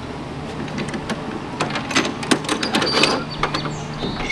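Metal clicks and clanks as the latches on the rear ramp door of an enclosed car-hauler trailer are worked open, over a steady low hum.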